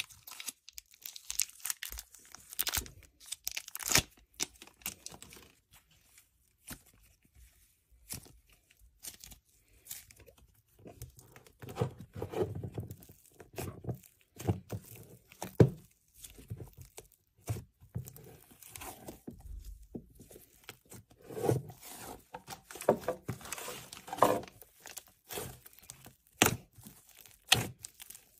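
A small plastic packet crinkling and tearing as it is opened, then fluffy pink slime being poked, pressed and stretched by hand, making sticky clicks, crackles and squishes.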